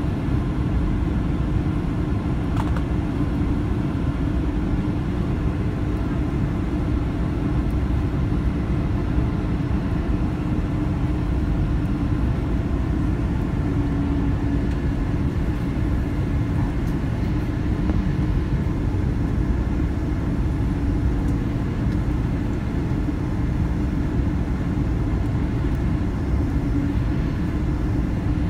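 Steady low rumble of a Boeing 787-10's jet engines and rushing air, heard inside the cabin on final approach, with a steady hum running under it.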